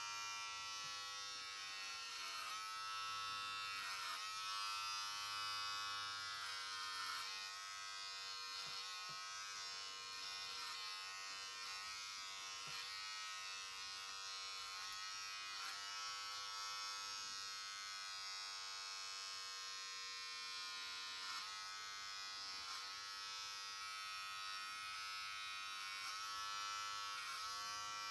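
Electric hair clippers running steadily while cutting a boy's short hair, their pitch wavering slightly.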